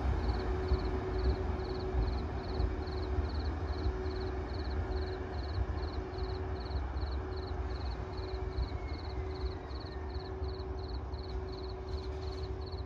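EF81 electric locomotive running light and pulling away, a low rumble that slowly fades as it recedes. Over it sit a steady hum and a high chirp repeating about twice a second.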